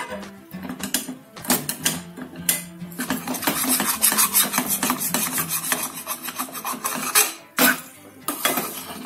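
Metal spatula scraping and stirring spiced mashed potato filling around a stainless steel pan as it is dry-roasted, in quick repeated rasping strokes.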